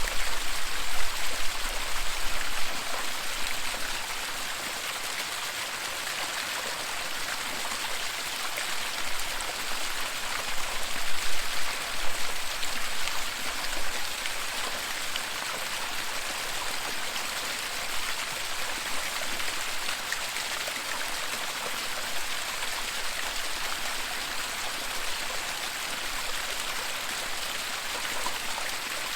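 Waterfall: a steady rush of falling water, with a few low rumbles that swell in the first few seconds and again about eleven seconds in.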